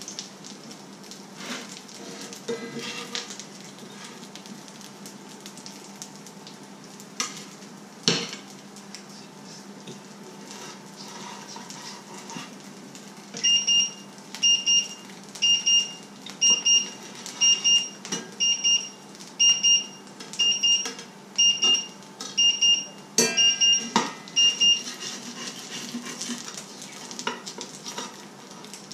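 Food sizzling in a frying pan, with sharp clinks and scrapes of a knife and spatula against the pan and plate. About halfway through, an electronic beeper starts beeping about twice a second for roughly ten seconds, louder than the frying.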